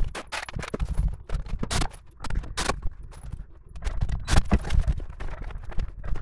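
Irregular knocks, low thuds and sharp clicks of a person moving about and handling tools and cables on a hollow plywood van floor.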